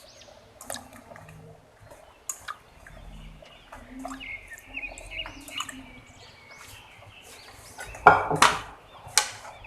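Cooking-pot sounds from a pot of chicken and sponge-gourd soup: light clinks and taps of a utensil, then two louder clattering scrapes near the end, with birds chirping in the background.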